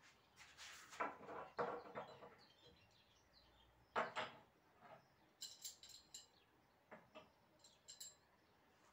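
Small metal coat hooks clinking against each other in a cupped hand and clicking as single hooks are set down on wooden pallet boards. A cluster of clinks in the first two seconds, a sharper click about four seconds in, then lighter scattered clicks.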